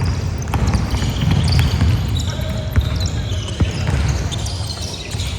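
Basketball being bounced on a hard court during a game, with sharp knocks and players' voices over a steady low rumble.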